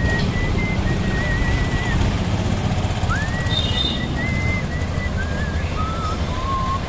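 A person whistling a slow, wavering tune in single pure notes that slide up into held tones, over a steady low rumble of wind and road noise from riding through traffic.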